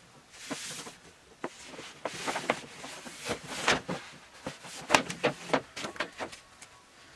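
Irregular rustles and soft knocks, several a second, from close movement such as cloth and body brushing against a surface.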